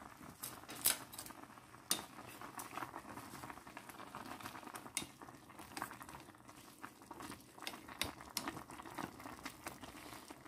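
Ramyeon broth bubbling at a boil in a stainless steel pot, with wooden chopsticks stirring and tapping against the pot. A few sharp taps, the loudest about one and two seconds in.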